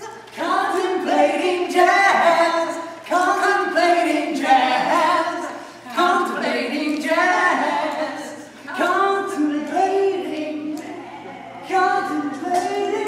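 A small group of voices singing together unaccompanied, in short phrases broken by brief pauses every second or two.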